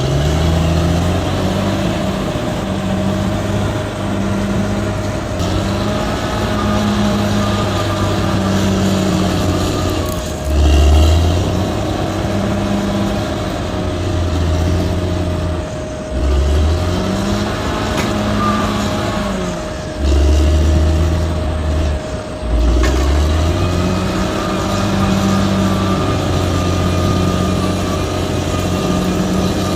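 Diesel engine of a heavy earthmoving machine running and working under load, its pitch rising and falling, with a steady whine throughout. It surges louder for a second or two several times.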